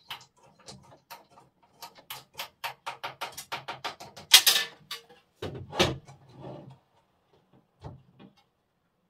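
Quick series of clicks and taps as pegboard accessories are handled and pushed into the holes of an IKEA SKÅDIS pegboard, with a short scraping rustle about halfway through and a knock soon after.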